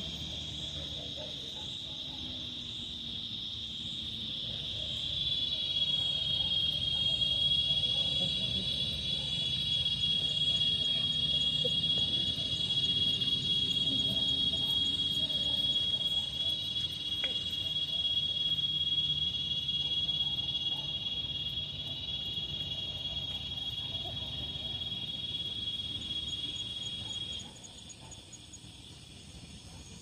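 A singing insect holding one continuous high-pitched trill, louder from about five seconds in, that cuts off suddenly near the end.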